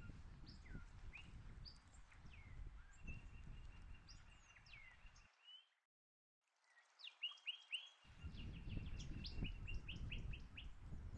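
Wild birds calling and singing: assorted whistled slurs and chirps, then a quick series of repeated notes, over a low background rumble. The sound cuts out completely for about a second midway, then the birdsong resumes.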